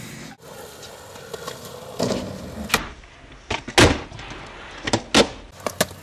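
Skateboard wheels rolling on concrete with a low rumble, broken by several sharp clacks of the board, the loudest a little under four seconds in.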